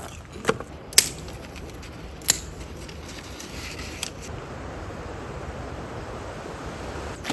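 Small fire crackling: a few sharp snaps in the first four seconds over a steady low rushing noise.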